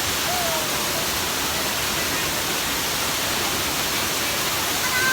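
Waterfall running steadily: an even, continuous rush of falling water.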